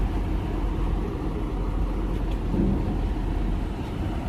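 Diesel engine of a loaded Hino truck running steadily at low revs as it creeps forward.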